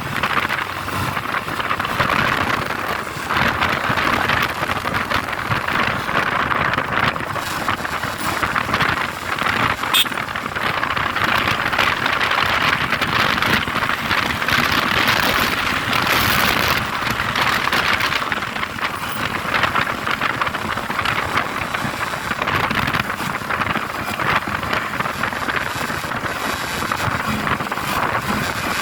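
Steady road noise from a moving vehicle: a rush of wind and traffic with no clear engine note, and a single sharp click about ten seconds in.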